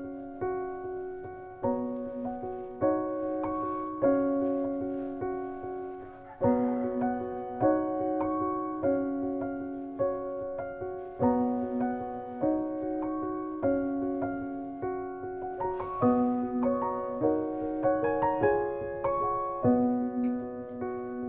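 Slow piano music, a note or chord struck about every second, each ringing on and fading.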